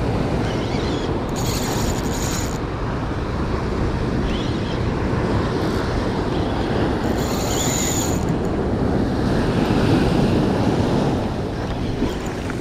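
Surf washing onto the beach, with wind buffeting the microphone. A spinning reel with a fish on gives a short high buzz twice, about a second each, once early and once about seven seconds in.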